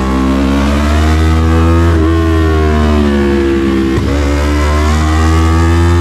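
Yamaha MT-03 parallel-twin engine through an SC-Project full exhaust, accelerating hard with its note climbing and breaking briefly twice as the rider changes gear.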